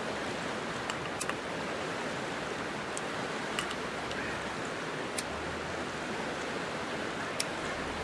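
Steady rush of flowing creek water with a few scattered sharp ticks over it. A low rumble joins in for the last few seconds.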